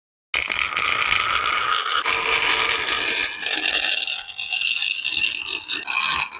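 Marbles rolling and clattering down a toy marble run: a continuous rattle of many small clicks that starts abruptly about a third of a second in.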